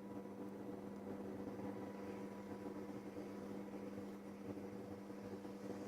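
Hot air gun blowing while heating the phone's display edges to soften the screen adhesive: a steady hiss with an even electrical hum.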